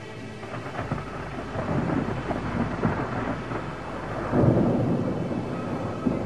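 Thunder rumbling and crackling, building from about a second in to its loudest around four and a half seconds in, then slowly dying down.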